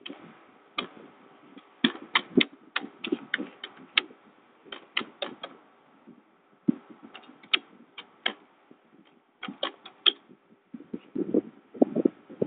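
Typing on a computer keyboard: keys clicking in irregular runs, with a short pause about six seconds in and a few duller knocks near the end.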